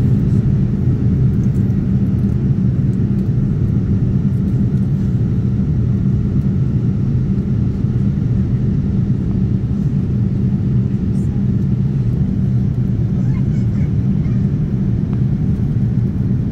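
Steady cabin noise inside a jet airliner on descent: an even, low rumble of the engines and airflow.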